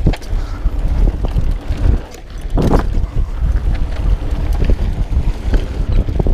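Wind buffeting the microphone of a chest-mounted action camera as a mountain bike rolls downhill on a dirt trail, a heavy rumble with scattered clicks and rattles from the bike over the bumps.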